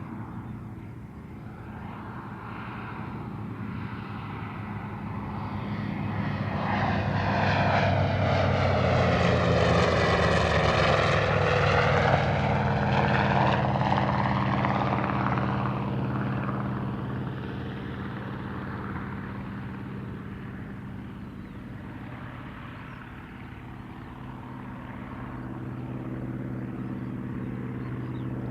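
Piston-engined warbird flying past: its engine drone builds to the loudest point about ten seconds in, with a sweeping shift in pitch as it passes, then fades and swells again near the end.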